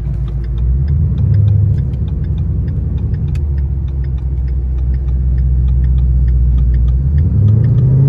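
Ford Mustang GT's 5.0 Coyote V8 droning steadily while driving, heard from inside the cabin. Its pitch rises briefly about a second in and again near the end. A fast, regular ticking runs over it.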